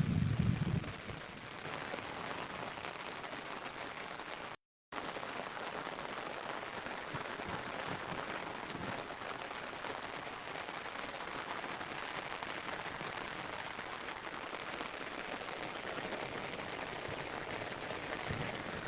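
Steady rain falling, an even hiss throughout, with a low rumble in the first second and a brief dropout to silence a little under five seconds in.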